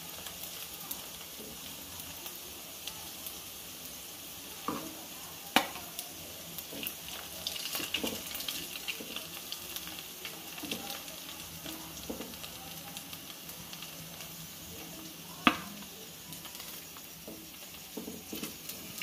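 Chirer pitha balls sizzling and crackling in hot frying oil in a pan, with a few sharp clinks of a steel spoon against the pan as they are lifted out.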